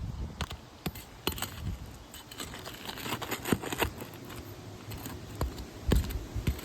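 Scattered light clicks, taps and scraping of hand tools working at asphalt roof shingles fastened with nails and staples, with a few louder knocks about six seconds in.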